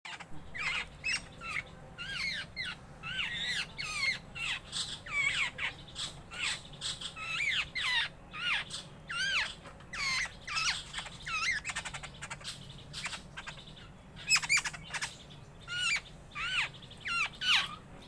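Birds calling continuously: a busy chatter of short calls that rise and fall in pitch, several a second, with a brief lull just before two-thirds of the way through.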